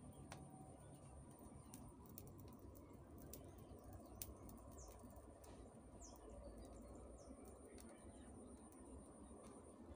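Near silence: faint background hiss with scattered soft ticks and a few faint, short, high bird chirps around the middle.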